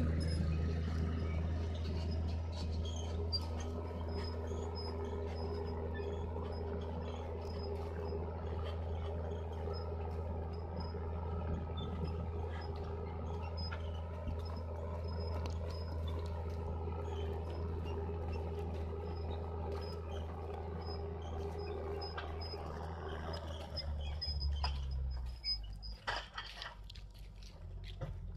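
Deutz-Fahr M620 tractor engine running steadily under load while pulling a reversible plough with a packer roller: a steady low drone. About 24 seconds in the drone drops and turns uneven.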